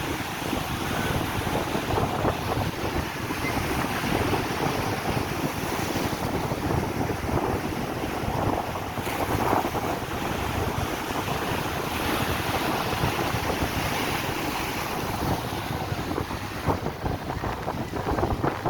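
Sea waves washing and breaking against the shore in a continuous rush that swells and eases, with wind buffeting the microphone.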